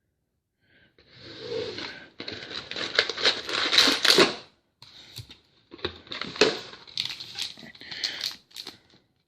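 Plastic foil trading-card pack wrapper crinkling and tearing, with cards being handled. It starts about a second in and pauses briefly near the middle.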